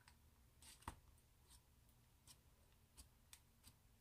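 Fingers pressing and poking into slime, giving faint, irregular sticky clicks and small pops, the loudest about a second in.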